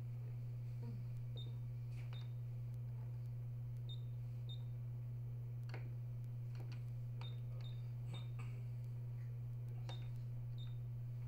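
Steady low electrical hum of an ultrasound scanner, with scattered clicks and about a dozen short high beeps from its controls as the scan is worked.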